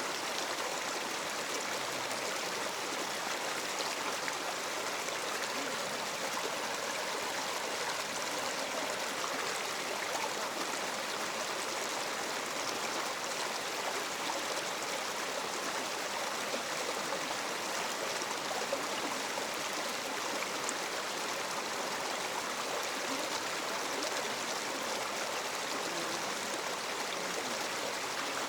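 Stream water running steadily over rocks, an even rushing with no breaks.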